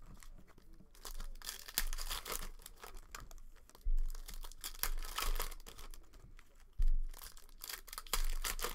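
Foil wrapper of a basketball card pack crinkling and tearing in irregular bursts as it is handled and opened. Dull knocks about four and seven seconds in are the loudest sounds.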